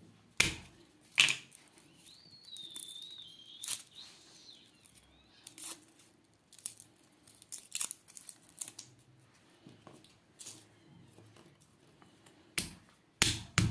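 Garlic being peeled by hand: dry papery skins tearing and crackling, with scattered sharp clicks and snaps, the loudest about half a second and a second in and again near the end.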